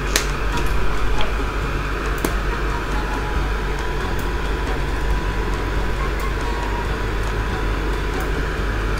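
Steady hum and hiss with a few light clicks: kimchi fried rice frying in a pan on an induction cooktop, stirred with a wooden spatula.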